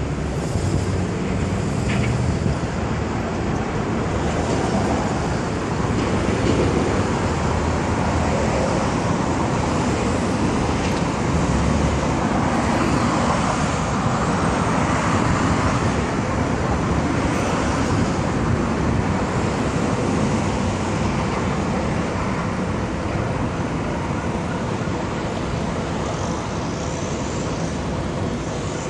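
Steady traffic noise from a busy multi-lane road: a continuous wash of passing cars and trucks, with no single vehicle standing out.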